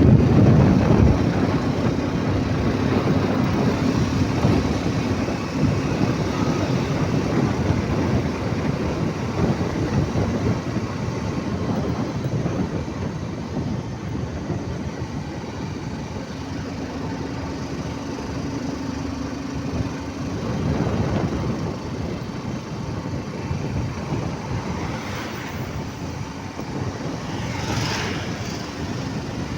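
Road traffic noise: a steady rumble with a low engine hum that comes and goes. It grows louder as vehicles pass, about two-thirds of the way through and again near the end.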